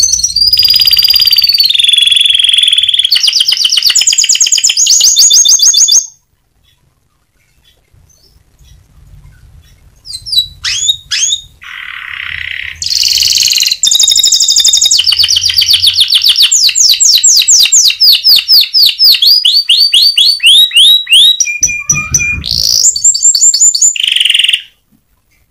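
Domestic canary singing loud, fast trills and rolls of rapidly repeated notes. The song breaks off for about four seconds partway through, then resumes and stops abruptly near the end.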